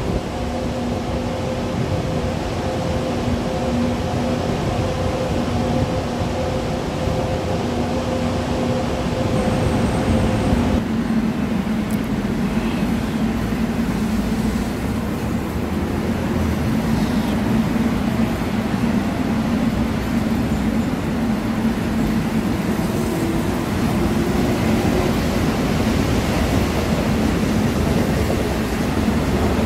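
Seoul Metro 1000-series rheostat-control electric train on Line 1 running alongside the platform: steady traction-motor and wheel rumble, with a faint rising whine about two-thirds of the way through. Before that, for roughly the first third, a different steady hum with low held tones cuts off sharply.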